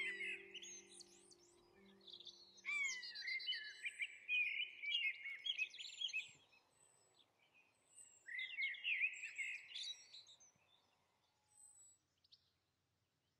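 Songbirds singing in quick warbling, whistled phrases, in two main bursts of song with a few thin high notes between. Soft low music tones fade out in the first two seconds, and the birdsong dies away near the end.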